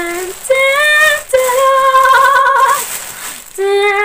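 A girl's high voice singing a few long wordless notes in a sing-song, fanfare-like way, the longest held for about a second and a half with a slight wobble.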